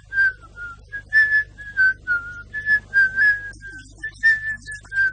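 A whistled tune: short, clear notes stepping up and down within a narrow range, repeating the same little phrase about every second and a half.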